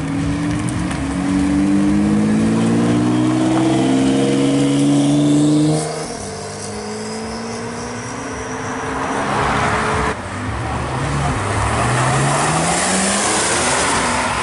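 Porsche 911 flat-six engines accelerating hard: the first revs up with a steadily rising pitch for about six seconds, then falls off sharply. About ten seconds in, a second 911 revs up, again rising in pitch.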